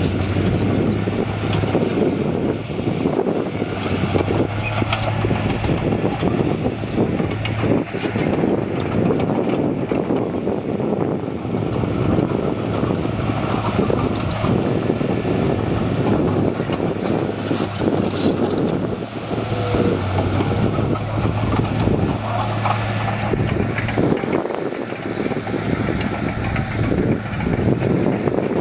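Diesel engine of a working bulldozer running steadily under load, with a continuous clatter of short knocks and rattles from tracks and rock.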